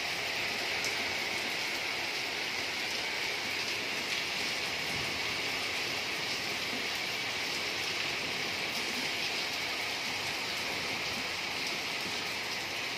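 Steady rain falling on leaves and a wet paved courtyard, a continuous even hiss.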